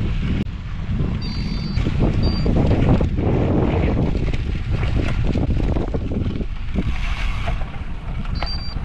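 Wind buffeting the microphone, a loud gusting rumble.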